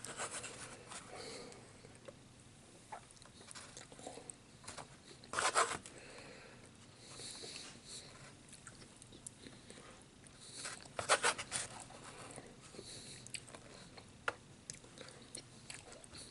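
Close eating sounds of a man chewing a tamale dinner, with scattered small clicks and two louder clatters about five and eleven seconds in.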